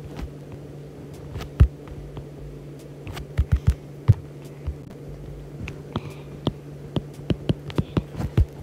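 A stylus tapping and stroking on an iPad's glass screen while drawing, heard as irregular sharp clicks with a few louder knocks, the biggest in the first half. A steady low hum runs underneath.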